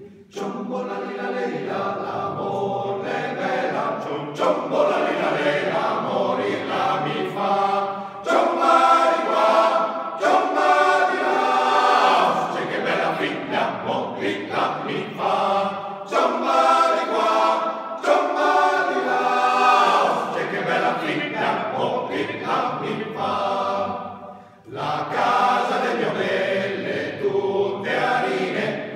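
Male-voice choir singing a cappella in several parts, the sound carried by a reverberant church, with a brief break between phrases near the end.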